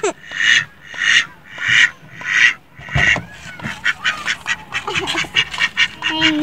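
Mallard drake quacking, raspy calls about one every two-thirds of a second. Around three seconds in they give way to a fast run of short quacks, about five a second.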